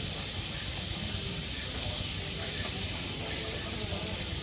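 Sliced beef and onions sizzling in a hot sukiyaki pan, a steady hiss.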